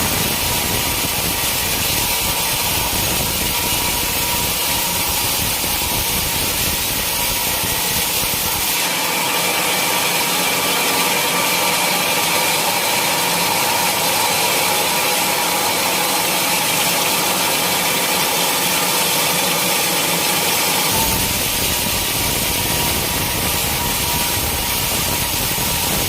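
Sawmill machinery running steadily, an engine-driven saw cutting teak. Its sound shifts abruptly about nine seconds in, with less low rumble and more high noise, and returns to the first sound near the end.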